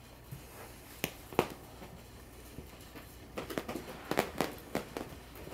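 Pocket beagle puppies playing: light scattered clicks and taps, two about a second in and a quicker run of them near the end.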